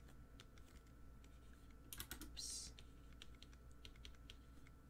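Faint, irregular clicks and taps of a stylus pen on a tablet screen during handwriting, with a brief louder hiss about two seconds in.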